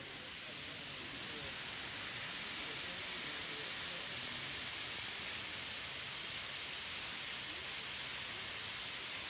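Waterfall flowing: a steady, even rush of falling water.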